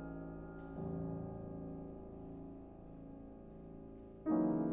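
Steinway grand piano playing quiet, sustained chords that ring and slowly fade. A soft new chord comes in about a second in, and a louder one near the end.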